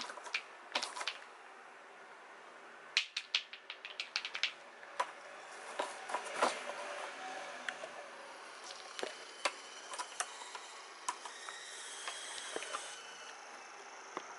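Sharp, irregular clicks and taps of a kitten playing with a toy mouse on a wand over a wooden floor: claws skittering and the toy knocking against the floor, with a quick run of clicks about three seconds in.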